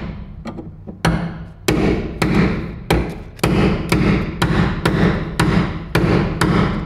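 Hammer blows driving a spot-weld removal chisel into the steel of a car's rusty sill panel to cut through its spot welds, about two sharp ringing strikes a second after a pause of about a second.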